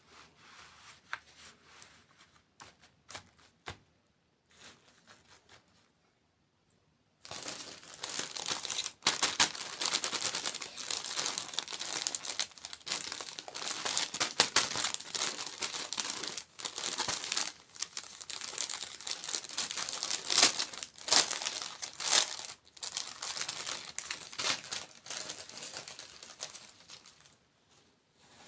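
Faint scattered clicks and taps, then about seven seconds in a long stretch of loud, dense crinkling of a food wrapper being handled and crumpled close to the microphone, which stops near the end.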